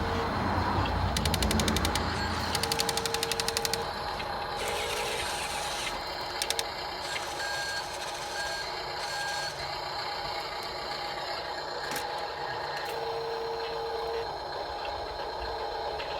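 Small electric drive motors of a 1/24-scale remote-control Cat 950M wheel loader model whirring steadily. A low electronic beep sounds three times, and three short higher beeps come near the middle. A run of rapid clicking comes about a second in.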